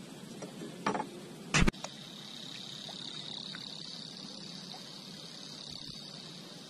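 Two hard knocks about a second in, the second one louder, then a steady high-pitched insect buzz.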